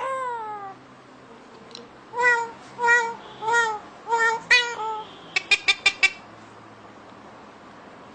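Pet parrot calling: a falling call at the start, then about five short arched squawks roughly two-thirds of a second apart, then a quick run of sharp chirps about five to six seconds in.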